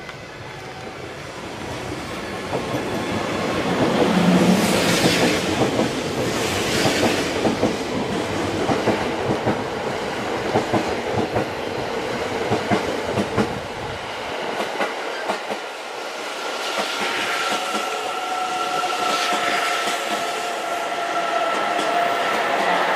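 E001-series TRAIN SUITE Shiki-shima passing through a station, its wheels clattering rapidly over the rail joints, loudest about four seconds in. The deep rumble drops away partway through, and a steady high whine joins in the last several seconds as the cars run past.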